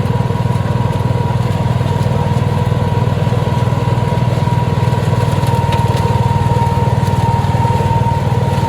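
Petrol engine of a flail mower running steadily at constant speed, with a steady high tone above the engine's low hum.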